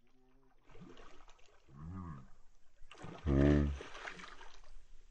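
A hooked fish thrashing and splashing at the water's surface on the end of a fishing line. About three seconds in, a voice calls out loudly once over the splashing.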